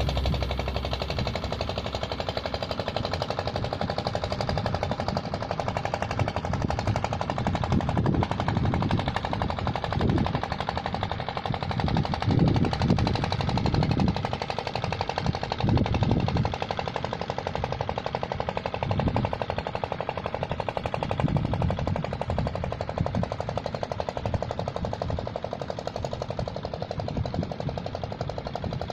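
Small sand-transport boat's engine running steadily across the water, a rapid even putt-putt rattle, with irregular low rumbling swells through the middle.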